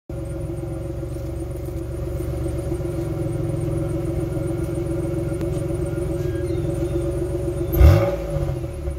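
Exhaust of a 2004 Pontiac Grand Prix GTP's supercharged 3800 (L32) V6, heard at the tailpipe, running at a steady idle with a cold air intake fitted. A short, loud burst about eight seconds in is the loudest moment, followed by a couple of smaller bumps.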